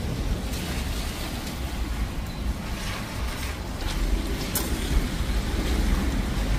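Low, steady rumble of continuous distant thunder from a severe thunderstorm.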